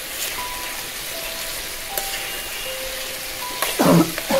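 Chickpeas and onions sizzling in oil in a pan on an induction cooktop, stirred with a spoon. There is a louder burst of sound near the end.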